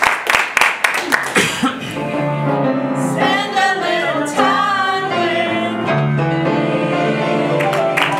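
Audience clapping in time, about four claps a second, fading out about two seconds in as singing begins: a group of voices holding long notes with piano accompaniment.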